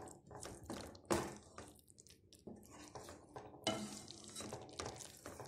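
A spoon stirring thick chicken curry gravy in a pan, making a series of short, irregular wet scraping strokes.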